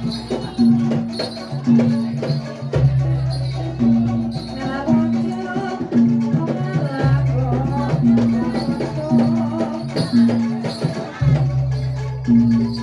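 Live Javanese traditional ensemble music accompanying the dance. A deep sustained tone returns about every four seconds under a steady beat of pitched notes about once a second, with percussion rattling over it and a voice singing in the middle.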